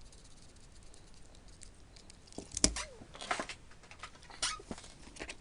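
Near quiet for about two seconds, then a run of sharp clicks and light taps from small parts and tools being handled on a workbench, the loudest click at about two and a half seconds.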